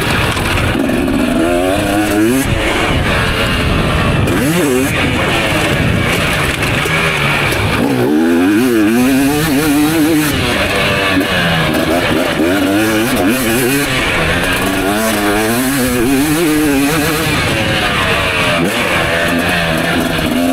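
Motocross bike engine revving hard on track, its pitch climbing and dropping again and again as the rider opens and shuts the throttle through the gears, with music playing underneath.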